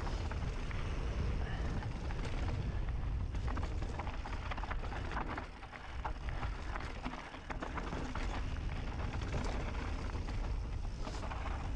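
Wind buffeting the microphone over the rattle and crunch of a mountain bike riding a rough dirt trail, with many sharp clicks and knocks from the tyres and bike. The rush eases briefly twice near the middle.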